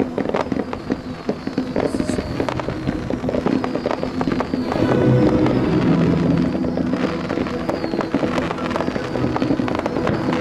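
Low-level display fireworks firing: a steady run of rapid pops and crackles from small aerial bursts and rising comets, with music playing underneath.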